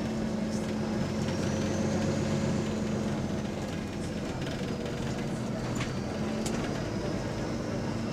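Double-decker bus running, heard from on board: a steady engine hum with a faint high whine that rises and then slowly falls, and a few light rattles and clicks.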